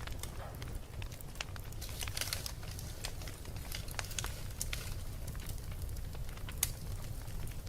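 Wood fire in a fireplace crackling: scattered sharp pops and snaps over a steady low rumble, with a busy run of crackles about two seconds in and one louder pop near the end.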